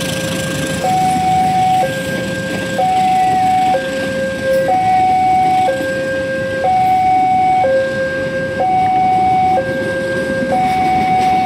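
Railway level crossing warning alarm sounding two alternating electronic tones, low and high, each held about a second, over the rumble of passenger coaches rolling past on the rails.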